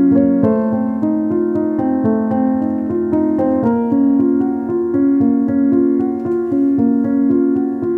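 Background music on a keyboard: a slow, steady line of held piano-like notes and chords that change every second or so.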